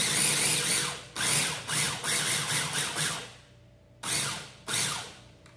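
Electric mini food processor pulsed in a series of short bursts, its motor whirring and blade chopping olives, with a brief pause in the middle.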